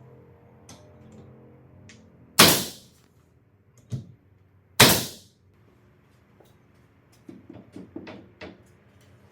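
Two loud, sharp workshop bangs about two and a half seconds apart, each dying away over about half a second, with a smaller knock between them, then a quick run of light knocks and clicks near the end, over faint background music.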